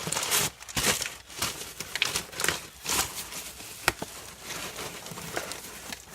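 Cardboard and packing material rustling and crinkling while boxed items are handled and moved, in irregular bursts, with a sharp knock about four seconds in.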